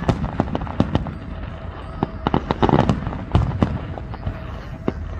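Aerial firework shells bursting: many bangs and crackles in quick, irregular succession, thickest about halfway through.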